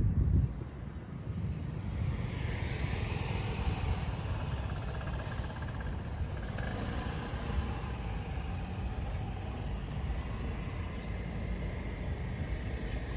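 Wind rumbling on the microphone, with a steady noise of passing road traffic that swells about two seconds in and holds.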